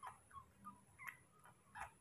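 Faint, short squeaks from a baby monkey suckling milk from a bottle, about five in two seconds.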